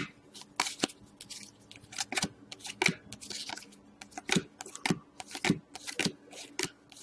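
Hockey trading card packs being opened and the cards handled: a run of irregular crisp clicks, snaps and rustles of foil wrappers and card stock.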